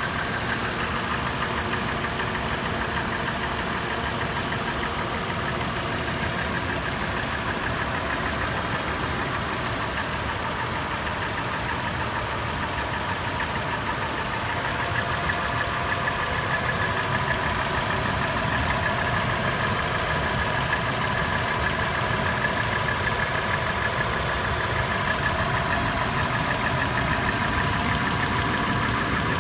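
Toyota FJ engine idling warm with a fast, continuous clattering tap, the fault noise the owner is chasing. A steady whine runs underneath, and the sound gets slightly louder about halfway through.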